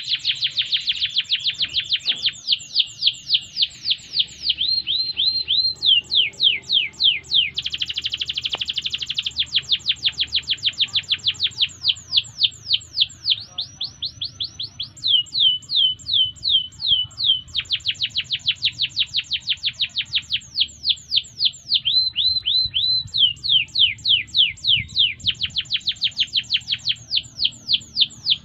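Domestic canary singing a long, continuous song. Its phrases change every second or two, alternating fast trills, runs of repeated downward-sweeping whistled notes and short bursts of quick repeated notes.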